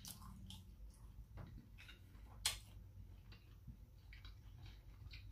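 Near silence: faint room hum with a few scattered small clicks, one sharper click about two and a half seconds in.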